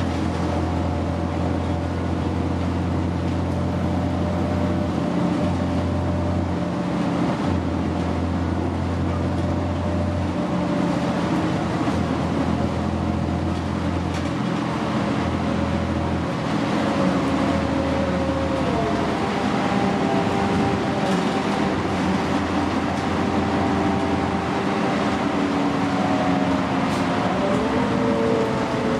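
Interior of a New Flyer D60LFR articulated diesel bus under way: a steady engine and drivetrain drone with a whine over a haze of tyre and road noise. The whine's pitch drops about two-thirds of the way through and climbs again near the end as the bus slows and speeds up.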